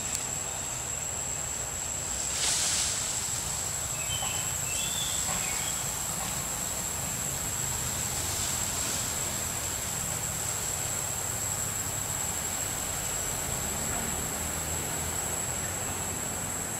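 Forest ambience dominated by a steady, high-pitched insect drone, over a low rumble, with a few short high chirps about four to five seconds in.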